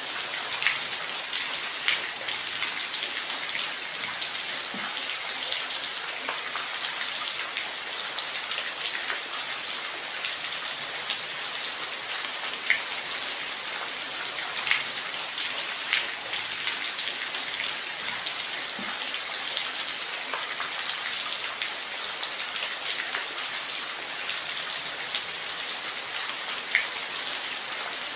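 Steady rain falling, an even hiss with scattered louder individual drops striking a surface.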